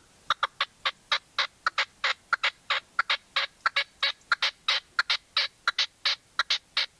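Red-legged partridge calling: a long, fast series of short, harsh notes, about four or five a second.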